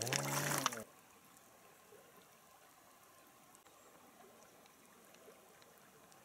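Faint, steady trickle of river water, with a few light ticks.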